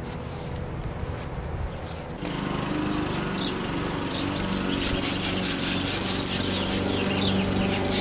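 A rag rubbing a rubber car floor mat at first. Then a trigger spray bottle of glass cleaner is squirted repeatedly at a car window, giving a string of short hisses in the second half. A steady motor drone runs underneath from about two seconds in.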